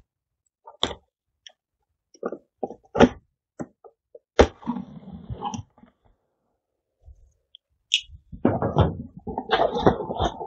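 A cardboard shipping box being opened: scattered clicks and taps as a box cutter slits the packing tape, with a sharper knock and a second of scraping about halfway. From about 8 seconds in, a dense run of cardboard rustling and knocking as the flaps are pulled open.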